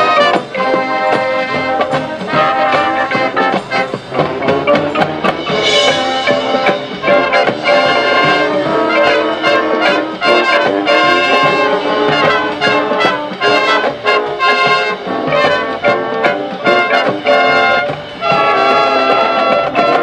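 Band brass section, trumpets and trombones, playing a loud passage of sustained chords.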